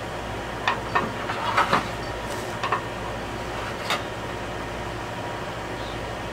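Several short clicks and knocks in the first four seconds as a metal speed square and a wooden board are shifted and set down on a slatted table, over a steady background hum.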